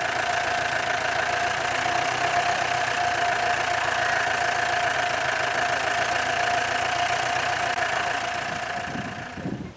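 A jeep's engine idling steadily at close range, with a steady high tone over it; the sound fades out near the end.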